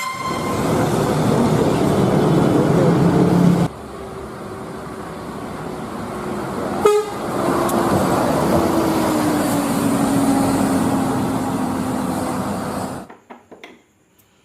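Road vehicle noise with a short horn toot at the start. The noise cuts abruptly about four and about seven seconds in, and a steady engine note slowly falls in pitch in the second half. It all stops suddenly about thirteen seconds in.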